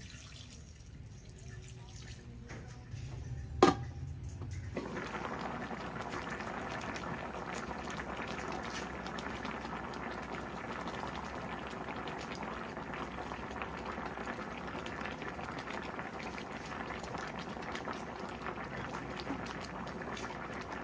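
A single sharp click about three and a half seconds in. From about five seconds in comes the steady bubbling of a pan of milkfish, guava and green chilies at a full boil.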